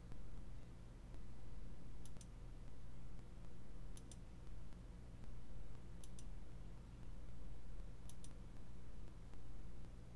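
Computer mouse button clicking, one press-and-release pair about every two seconds, four times, over a steady low electrical hum.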